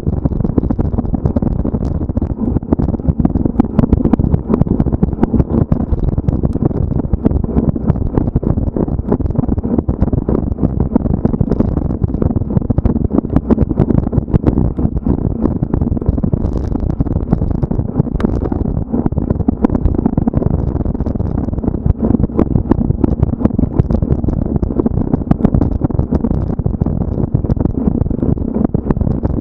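Mountain bike ridden over a rough cross-country trail, heard from a camera mounted on the bike or rider: steady wind rumble mixed with constant irregular rattling and knocks from the bike over roots and rocks.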